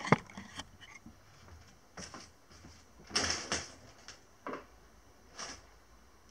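A few short, scattered knocks and clatters of things being handled, with a faint steady hiss between them.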